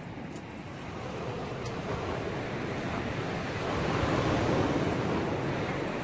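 Sea surf washing on the shore with wind buffeting the microphone; the wash swells louder about three and a half seconds in, then eases off.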